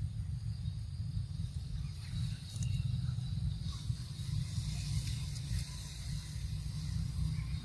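Outdoor ambience: a steady, fluctuating low rumble under a high, continuous insect buzz, such as cicadas or crickets, which swells in the middle.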